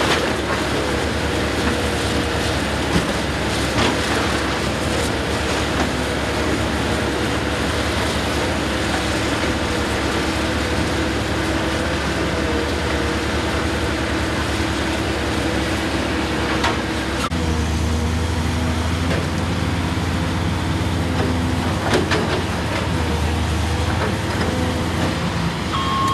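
Diesel engine and hydraulics of a Komatsu excavator running steadily under load, with a few sharp knocks of debris. The low engine drone grows louder and its pitch shifts about two-thirds of the way through.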